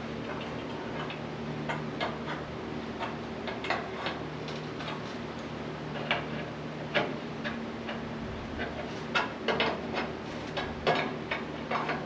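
Irregular light metallic clicks and taps of steel parts being handled and fitted onto a CNC plasma table's rail, over a steady low hum.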